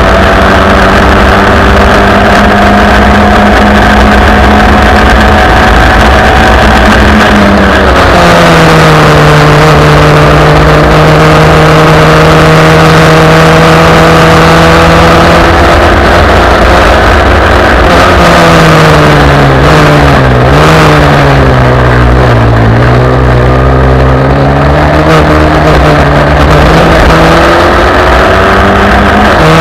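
1971 Merlyn Mk20 Formula Ford's 1600 cc Ford Kent four-cylinder engine running hard at racing revs. Its note holds high, drops about eight seconds in, dips and recovers several times around twenty seconds in, then climbs again near the end.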